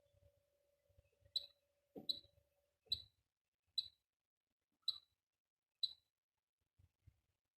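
Six short, sharp, high-pitched beep-clicks about a second apart: keypad button presses on a Cooper fire alarm control panel. A faint steady hum stops about a third of the way in.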